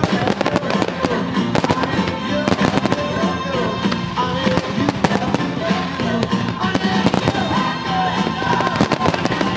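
Fireworks display: a dense, continuous run of aerial shell bangs and crackling bursts, with music playing underneath.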